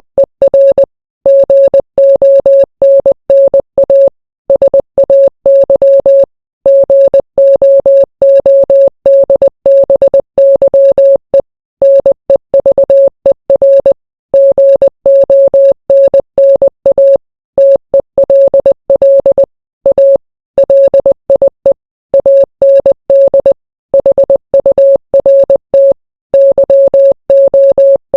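Morse code played as a single mid-pitched electronic beep, keyed rapidly on and off in short dots and longer dashes, with brief silent gaps between letters and words.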